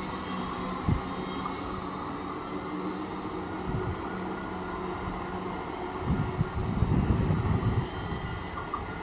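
Comeng electric suburban train pulling away from the platform, a steady low running hum that fades after about five seconds. It is followed by a louder spell of low rumbling from about six to eight seconds in.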